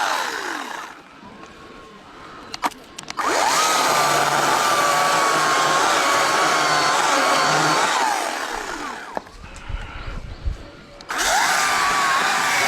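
Chainsaw engine running at full speed, dropping off twice to a low idle and revving back up each time, with its whine falling and rising in pitch. A few sharp clicks come in the first lull.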